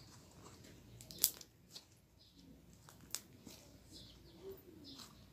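Slime being squeezed and worked by hand, crackling softly, with a few sharp pops, the loudest about a second in and another about three seconds in.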